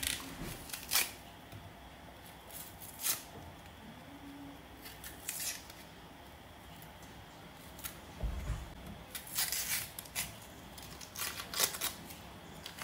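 Knife cutting through crisp vegetables: a scattering of short, sharp slicing strokes with pauses between them, and a dull thump about eight seconds in.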